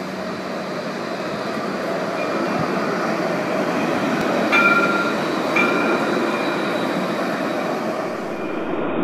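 Alstom Citadis tram passing close by on a city street: a steady rolling hum that slowly grows louder, with two short high ringing tones about a second apart near the middle.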